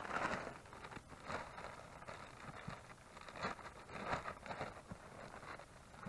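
Plastic sack of soil rustling and crinkling in irregular bursts as it is grabbed and handled.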